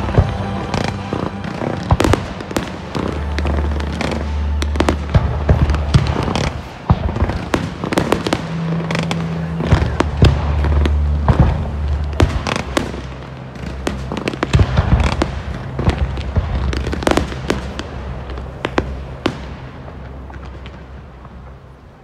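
Aerial fireworks display: a rapid, irregular string of bangs and crackling bursts, thinning out and fading over the last few seconds.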